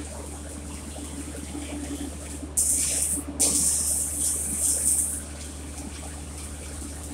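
Manual metal arc (stick) welding arc crackling and sizzling as the electrode burns. It gets much louder about two and a half seconds in, breaks off briefly, then crackles on until about five seconds in before dropping back, over a steady low hum.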